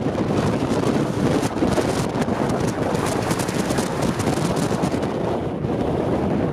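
Wind buffeting the camera's microphone: a loud, steady rushing noise with slight gusts.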